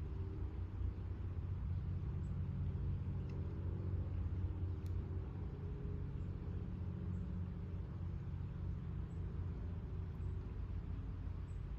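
Steady low rumble of distant road traffic, with a few faint, short high ticks scattered through it.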